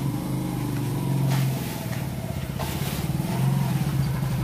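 An engine running steadily at an even, low pitch, with a couple of faint knocks.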